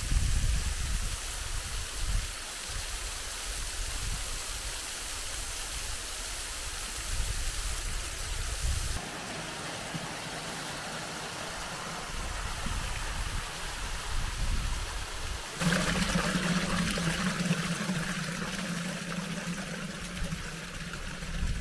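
Small waterfall and creek: running water, a steady rush that changes character abruptly about 9 and 16 seconds in, the last part brighter with a steady low tone under it.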